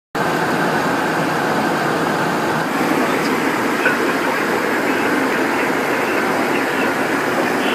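Steady rushing noise inside the cockpit of a Cessna Citation Encore business jet in flight: airflow and engine noise with no change in pitch.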